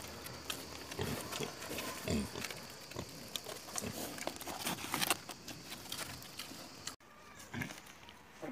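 Wild boars grunting low now and then as they feed from the ground, among many short clicks. The sound breaks off abruptly about seven seconds in.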